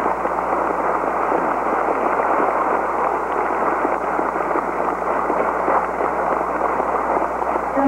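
An audience applauding steadily, a dense, unbroken clatter of many hands clapping.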